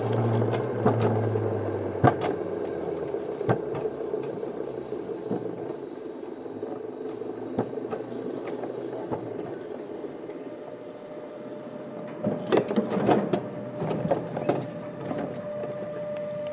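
Wiegand alpine coaster sled running on its tubular steel rails and slowing, its low rumble dying away in the first two seconds. Scattered clicks and knocks follow, with a burst of clatter near the end, when a steady hum starts.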